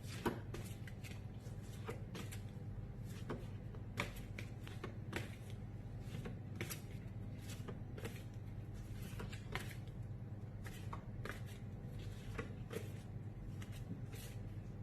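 Faint rustling and light taps of phonics flashcards being handled and pulled up one after another, over a steady low hum.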